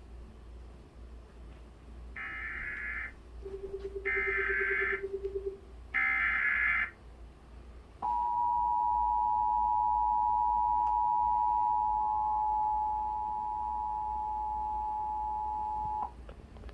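Emergency Alert System header: three bursts of SAME digital data, about a second each, heard as harsh warbling screeches, with a lower pulsing tone under the second burst. Then the two-tone EAS attention signal, a steady dual tone near 850 and 960 Hz, held for about eight seconds.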